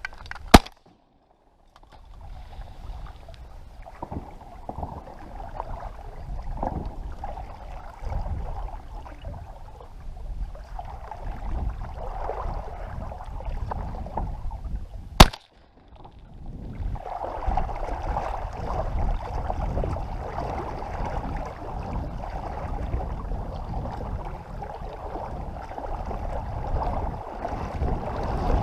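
Two shotgun shots about fifteen seconds apart, the first about half a second in and the second midway, each one sudden and very loud. Between and after the shots there is steady wind and water noise.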